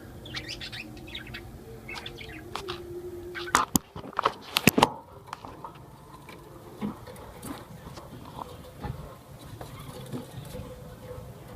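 Small parrots, lovebirds, chirping in short high calls, with a cluster of loud sharp knocks about four seconds in.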